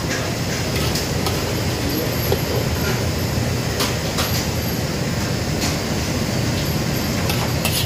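Steady rumbling noise of a commercial kitchen's wok range and exhaust ventilation, with a few sharp metal clinks as a steel ladle works between wok and plate.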